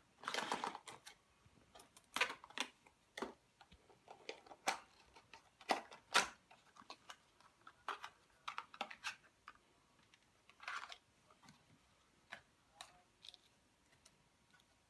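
Small cardboard boxes being handled and opened on a desk, with their contents lifted out: scattered short rustles, scrapes and light taps of cardboard and small plastic parts, irregular throughout.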